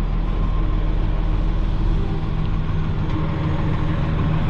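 Loaded dump truck's diesel engine running steadily, an even low hum.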